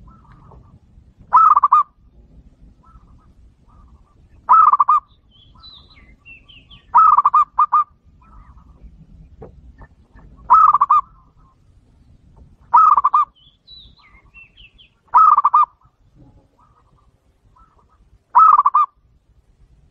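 Zebra dove (perkutut) cooing: short phrases of quick, rolling coo notes, seven in all, repeated every two to three seconds.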